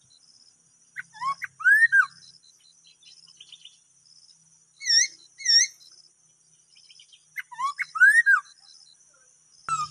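A caged songbird singing loud whistled phrases of sliding notes in three bursts: about a second in, a matching pair of notes near the middle, and again near the end. Insects keep up a steady high trill underneath.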